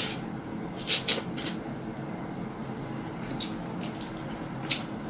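Close-up eating sounds: a person chewing roast chicken, with a few sharp wet mouth clicks and smacks about a second in and one more near the end, over a steady low background noise.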